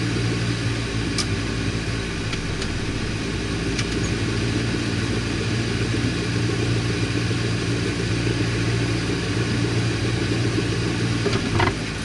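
Car engine with no exhaust system running steadily at low revs, a constant low drone heard from inside the cabin.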